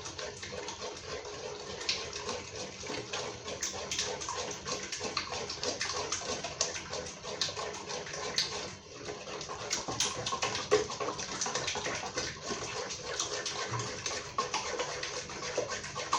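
A spoon stirring a thick, wet ogbono and palm-oil mixture in a pot, with continuous irregular squelching and scraping as it is mixed in with cold water.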